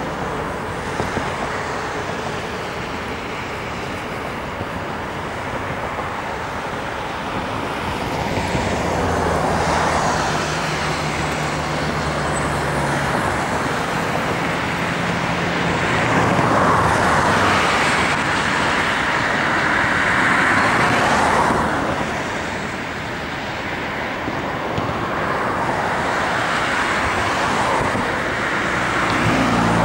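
Road traffic noise: a continuous rush of passing vehicles that swells and fades several times, with a low engine hum from a heavier vehicle partway through.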